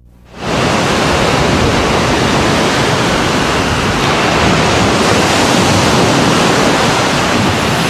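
Surf washing up on a sandy beach: a steady rush of breaking waves that comes in about half a second in.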